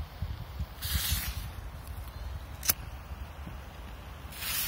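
A small firecracker being lit: two short scratchy hisses, each about half a second long and about three and a half seconds apart, with a single sharp crack between them.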